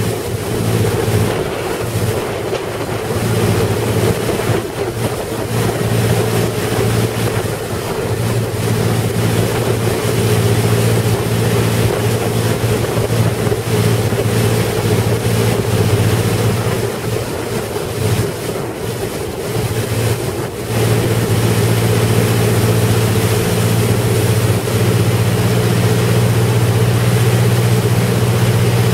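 Powerboat engine running at speed with a steady drone, over rushing water from the boat's wake and wind buffeting the microphone. The drone grows steadier and a little louder after about twenty seconds.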